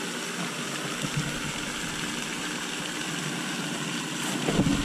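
Steady rushing hiss of a pond fountain's spray falling back onto the water. A low rumble joins in near the end.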